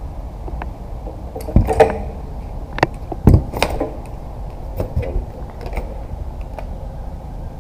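Fishing pliers and a metal jigging lure with treble hooks clicking and knocking as a deeply swallowed hook is worked out of a walleye's mouth. The clicks come irregularly, with a few heavier knocks about a second and a half and about three seconds in, over a steady low rumble.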